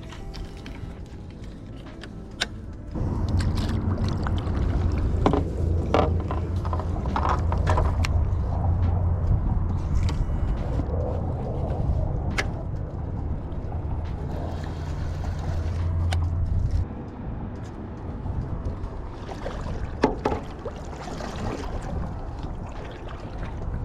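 A small boat motor runs with a steady low hum that starts about three seconds in and cuts off suddenly past the middle, over scattered knocks and clicks.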